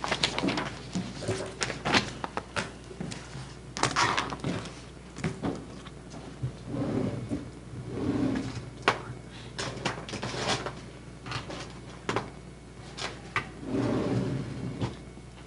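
Irregular clicks and knocks of objects being handled and set down close to a microphone, with a few faint muffled low sounds between them.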